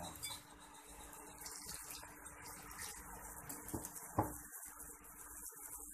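Wire whisk stirring flour batter in a ceramic bowl as cold water goes in, faint scraping and sloshing, with a sharp knock about four seconds in.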